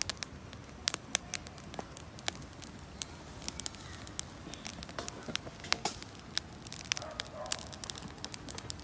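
Wood fire of sticks and logs crackling, with sharp, irregular pops several times a second.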